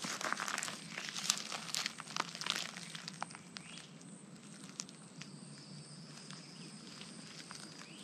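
Footsteps crunching and crackling on dry pine needles, leaves and grass, busiest in the first few seconds and thinning out after.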